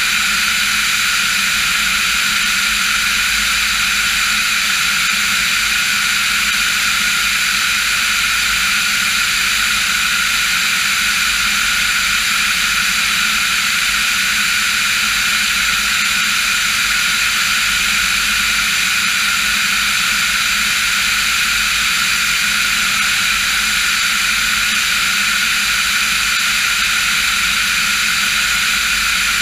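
Diamond DA40 NG light aircraft's Austro AE300 turbo-diesel engine and propeller running steadily in flight: a constant drone with several steady tones and no change in power.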